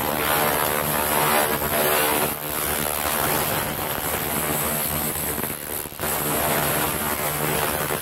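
Handheld 1 kW laser rust remover running while it ablates rust off cast iron: a steady, loud buzzing hum with a high hiss. It dips briefly about two and a half seconds in and again about six seconds in.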